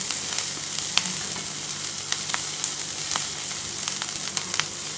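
Chopped onions, green chillies and curry leaves sizzling in hot oil in a nonstick kadai over a high flame, stirred with a wooden spatula. A steady hiss with scattered sharp clicks.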